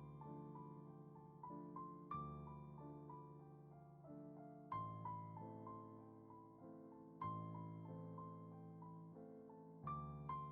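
Quiet, slow background piano music: gentle chords struck about every two and a half seconds, with single notes stepping down between them.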